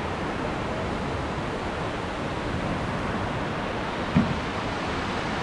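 Steady rush of water from river rapids, with one brief low thump about four seconds in.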